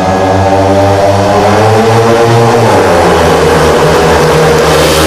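Pack of speedway motorcycles, each with a 500 cc single-cylinder methanol engine, racing at high revs. Their engine note falls in pitch about halfway through as the bikes sweep past.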